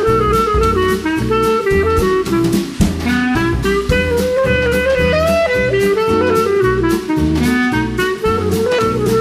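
Upbeat jazzy background music with a steady drum beat.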